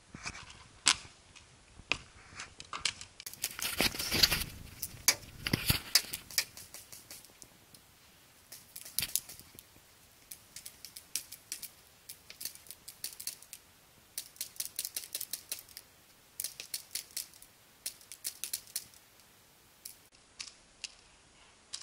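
Paintball markers firing in quick strings of sharp pops, several a second, with short pauses between strings, and paintballs breaking against the cover.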